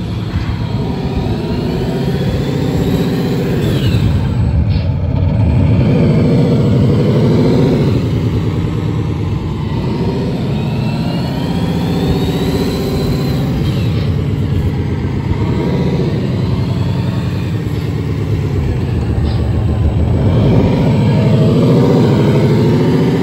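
Simulated heavy V12 diesel truck engine sound from an ESP32 RC sound controller, played loud through a bookshelf loudspeaker on a model truck. It revs up and falls back several times as the throttle is worked, with a deep bass rumble under the engine note.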